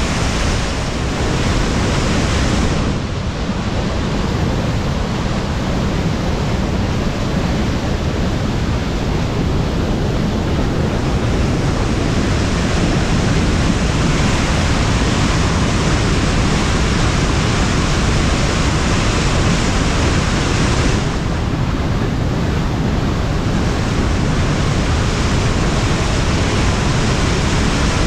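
Waterfall's whitewater rushing over rock close by: a loud, steady, unbroken noise of falling water, briefly a little duller twice.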